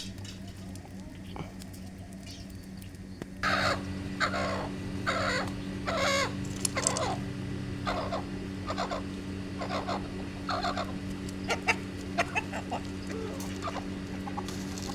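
Chickens clucking, a run of short calls repeating about one to two times a second, starting a few seconds in. A steady low hum runs underneath.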